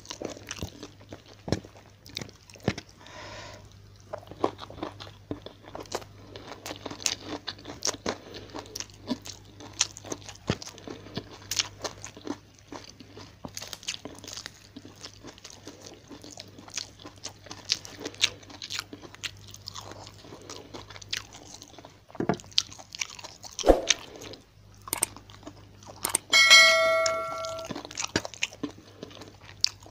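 Close-miked eating of fried tilapia with rice by hand: wet chewing and crunching with many small clicks and crackles. About 26 seconds in, a short chime-like sound effect of several held tones rings for about a second.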